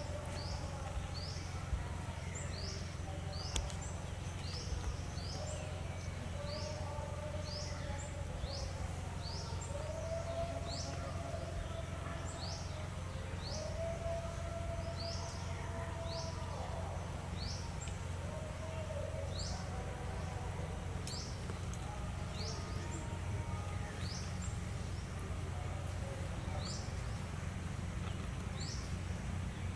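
An unseen bird repeating a short, high, rising chirp about once a second, with a few longer, lower steady notes in the middle, over a steady low rumble of background noise.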